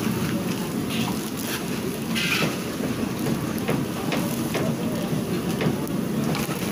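Crisps deep-frying in a large iron wok over a steady low rumble, with short scrapes and clinks of a metal skimmer against the wok as the batch is stirred and scooped out.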